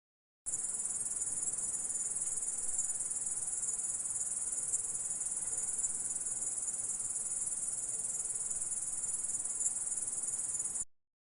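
Insect stridulation, a steady high-pitched chirring sound. It starts abruptly about half a second in and cuts off suddenly near the end.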